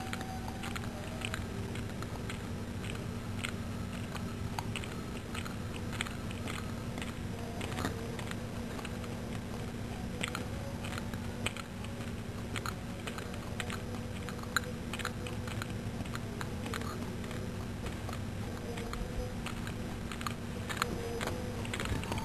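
A cat lapping milk from a plate: a steady run of light, quick clicks from its tongue, a few a second, over a steady low hum.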